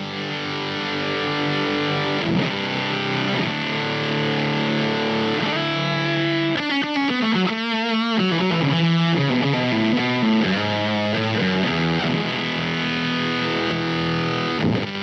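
Electric guitar through a single-knob fuzz pedal into a high-gain Engl Ironball amp, playing sustained, heavily distorted chords and riffs, with wavering bent notes about halfway through.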